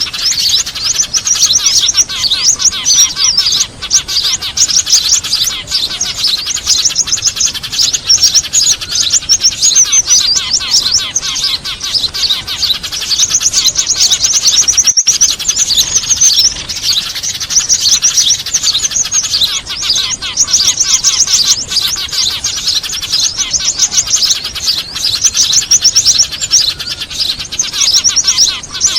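Dense, unbroken chatter of many small birds, rapid high chirps layered over one another: a bird-trapping lure recording of noisy Eurasian tree sparrows mixed with other small songbirds. A split-second break comes about halfway through.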